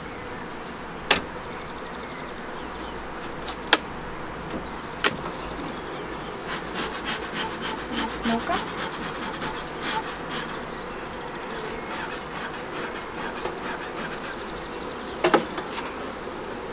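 Honeybees buzzing around an opened wooden hive. Sharp knocks come about a second in, again around four and five seconds, and near the end, as the wooden hive boxes are handled and lifted. A run of quick small clicks sounds in the middle.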